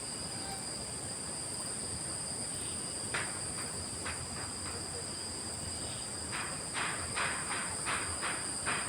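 Steady, high-pitched insect chorus of crickets or cicadas, holding two even tones. From about three seconds in, short rustling scrapes join it, coming about three a second in the last few seconds.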